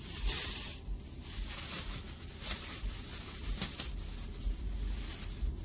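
Thin plastic shopping bag rustling and crinkling in short bursts as it is handled, over a steady hiss.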